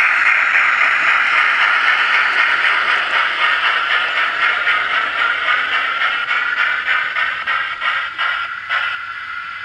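Synthesised steam-locomotive chuffing from the Revolution 57000 sound unit's loudspeaker inside a Gauge 1 BR Standard 4MT model locomotive, a steady run of exhaust beats as the loco runs. It fades over the last few seconds as the loco moves away.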